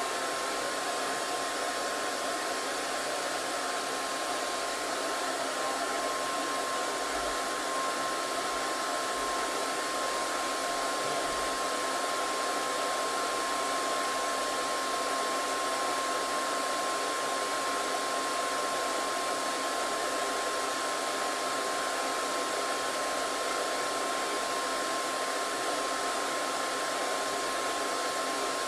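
Hair dryer running steadily: a continuous airy rush with a thin, steady whine.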